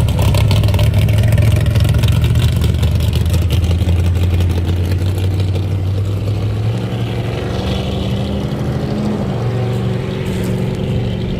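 Loud car engine running steadily with a deep, low drone; its note changes about seven seconds in.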